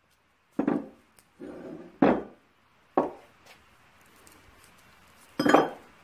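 Cast-iron camshaft gear with its shaft, a collar and pipe fittings set down on a workbench one after another: about four hard knocks, with a short scrape just before the second.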